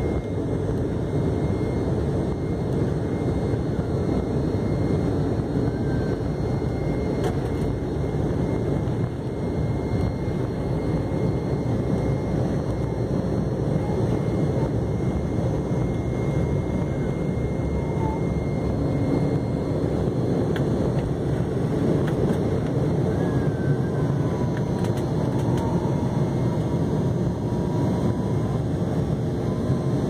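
Airliner engines at takeoff power heard from inside the passenger cabin: a steady, dense rumble that holds through the takeoff roll and liftoff.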